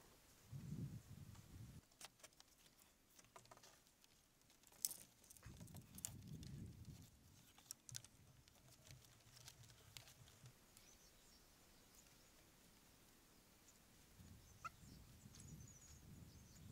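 Near silence, broken by a few faint sharp knocks and clicks, the loudest about five seconds in, and some soft low rumbles.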